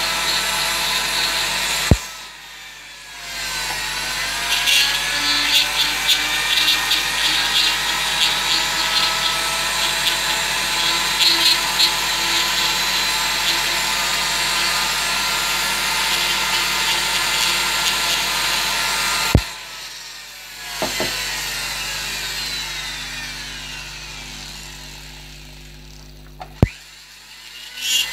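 Handheld rotary carving tool whining at high speed as its bit grinds the wood. It cuts off with a click about two seconds in and spins back up. It cuts off again about two-thirds of the way through, then runs with its pitch slowly falling until it stops with another click near the end.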